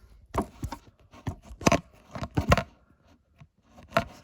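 A string of sharp, irregular plastic knocks and clicks with scraping between them, about eight in all: a Kidde i9010 smoke alarm being handled.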